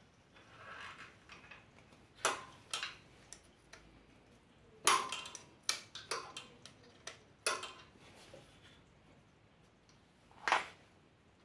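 Hand tools clinking and clicking against the steel bolt and gear-shift lever of a motorcycle engine: about seven scattered sharp metallic clicks, the loudest about five seconds in and near the end, with a soft scrape about a second in.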